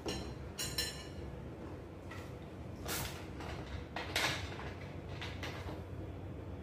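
A plastic cola bottle being opened and poured into a glass: short crackles and fizzing hisses from the cap and the pour, over a steady low hum.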